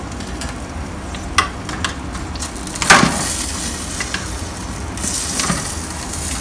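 Roasting chicken sizzling on a metal tray in an open oven, with a few clicks of metal tongs against the tray and one louder clank about three seconds in.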